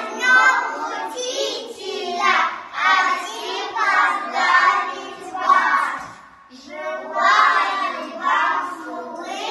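A group of young children singing together, phrase after phrase, with a brief break about six seconds in.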